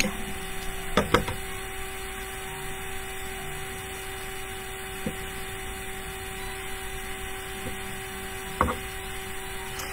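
A few light knocks and clicks from hands handling glass bottles and twine at a table, against a steady electrical hum; the sharpest knock comes near the end.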